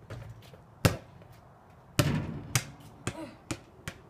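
A basketball thudding on a concrete driveway after a shot: two loud hits, then a run of bounces that come quicker and softer as the ball settles.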